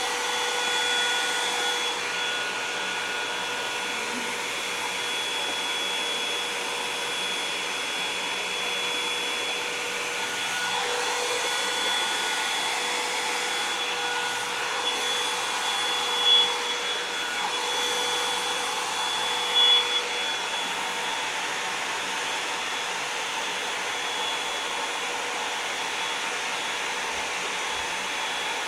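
Revlon One-Step hair dryer and volumizer brush running steadily, a constant blowing rush with a steady whine in it. Two short louder moments come a little past the middle.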